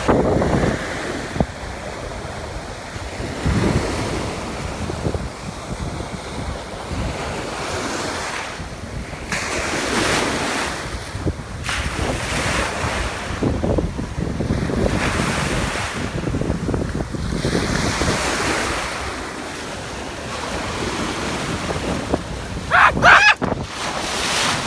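Ocean surf washing up in surges every few seconds, with wind buffeting the microphone. A brief high, wavering cry stands out near the end.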